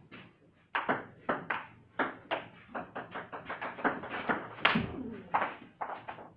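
A table tennis rally: the celluloid ball clicking in quick, uneven succession off the bats and the table, starting just under a second in and stopping near the end.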